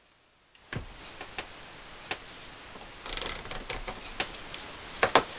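Light taps and clicks of a small round jar and a pencil handled on freezer paper over a cutting mat, with a brief scratchy stretch of pencil tracing around the jar about three seconds in. The taps are spaced out, with the sharpest pair near the end.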